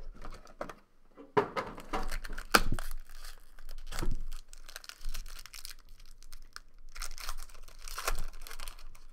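Plastic wrapping being torn and crumpled off a box of trading cards, in several uneven bursts of ripping and crinkling, the loudest between about one and a half and three seconds in and again near the end.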